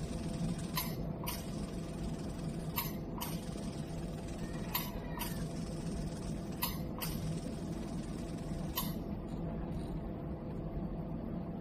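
Steady hum of a display line-repair laser machine, with sharp clicks, mostly in pairs about half a second apart, coming roughly every two seconds until about nine seconds in.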